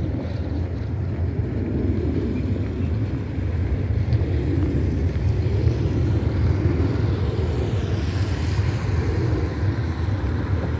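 Cars driving along a road, a steady low rumble of engines and tyres that swells slightly about halfway through.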